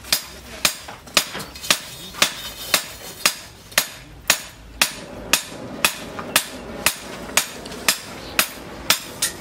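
Steady hammer blows on metal at a blacksmith's forge, about two a second, each with a short bright ring.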